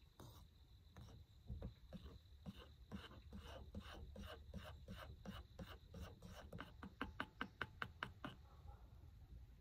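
Metal spoon stirring a frothy drink in a stainless-steel tumbler, clinking against the inside of the cup. The clinks speed up from about two or three a second to about five a second, then stop about a second before the end.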